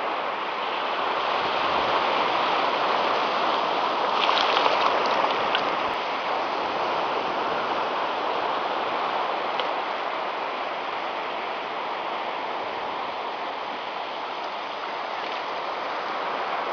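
Steady rushing of surf washing onto a sandy beach, with a few brief high ticks about four to five seconds in.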